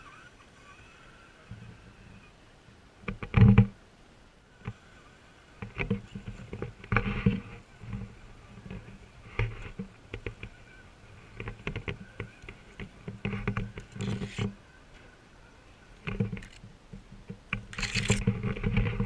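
Irregular rustling, scraping and bumps of someone pushing through dense undergrowth while handling the camera, with a sharp knock about three and a half seconds in and a busier stretch near the end.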